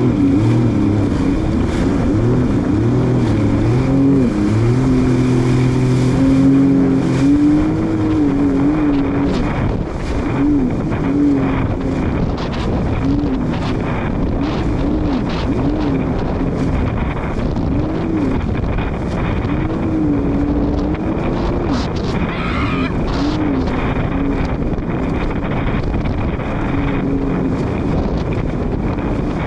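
Jet ski engine running hard at speed, its pitch rising and falling again and again, over a steady rush of wind and water.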